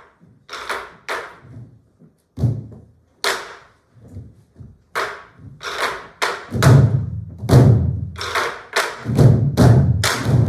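Ensemble of Korean sori-buk barrel drums struck with sticks and hands in unison: a few sharp, crisp strokes at first, then deep, heavy strokes on the drumheads that come faster and louder from about six seconds in.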